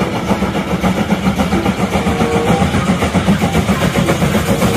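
Two German 2-10-0 steam locomotives, a class 50 and a class 52, working hard side by side. Their exhaust beats overlap in a fast, continuous chuffing of about five or six beats a second.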